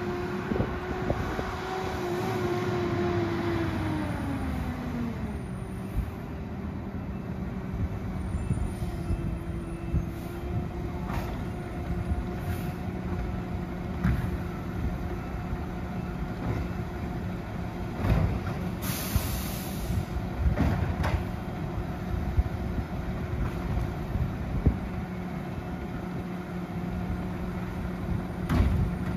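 Peterbilt garbage truck with a Labrie Automizer side-loader body: the engine's pitch falls as the truck slows and pulls up, then it idles with a steady hum. About two-thirds through comes a short air-brake hiss, and knocks from bins and bags being loaded, the loudest near the end.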